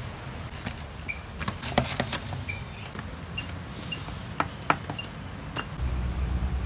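A spoon tapping and scraping as a mound of kiri bath (Sri Lankan milk rice) is pressed flat and scored on a banana leaf: a few sharp clicks, the loudest about two seconds in and twice more past four seconds. Short high chirps come now and then over a low hum, which grows louder near the end.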